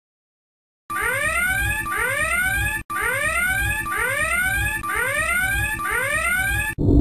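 Whooping electronic alarm sound effect: a rising siren tone that repeats about once a second, six times, starting about a second in. A short burst of noise comes right at the end.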